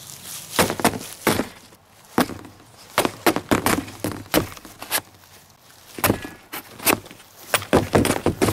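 Fixed-blade knife slashing and stabbing a hanging sheet of corrugated cardboard: a rapid, irregular series of sharp strikes, some coming in quick runs of two or three.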